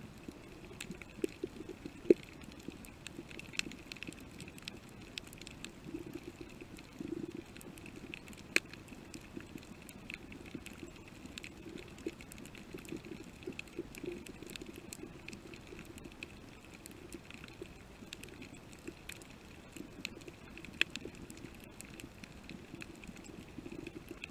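Underwater coral-reef ambience: irregular sharp clicks and crackles, typical of snapping shrimp, with a few louder snaps, over a steady low hum.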